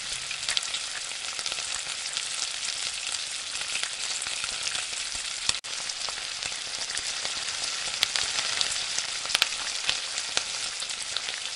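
Minced mutton keema masala sizzling in oil in an aluminium pot as it is fried (bhuna), a steady hiss with scattered small pops and crackles.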